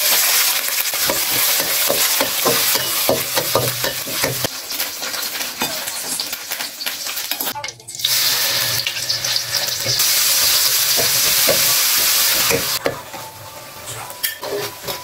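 Food frying in hot oil in a wok with a steady hiss, stirred and scraped with a metal spatula that clicks against the pan. About halfway through there is a brief break, then chili paste sizzles loudly in the oil. The hiss eases near the end, leaving more of the spatula's scraping.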